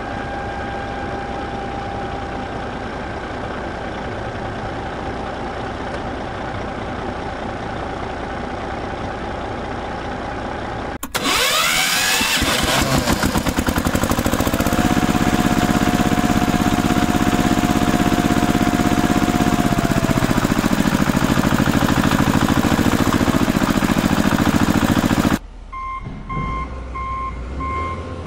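Heavy-vehicle engine sound effects laid over the toy play: a steady running engine, then about eleven seconds in a sudden louder engine start that rises and settles into a steady run, cutting off abruptly a few seconds before the end. A reversing alarm follows, beeping in short repeated tones.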